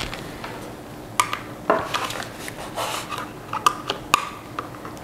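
Hard plastic clicks and knocks as a Eufy D605 pet camera is tipped over and handled and a power plug is pushed into the socket on its base. There are a few sharp clicks, the loudest about a second in and again near the end.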